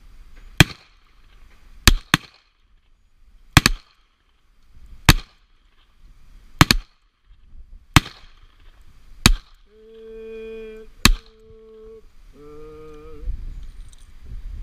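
Revolver fired about eight times, roughly one shot every second and a half, each a sharp crack, several followed closely by a second crack. Near the end a low, held humming tone runs under the last shot.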